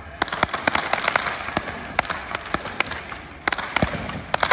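Fireworks going off: many sharp cracks and pops at irregular intervals over a steady hiss, as skyrockets are launched.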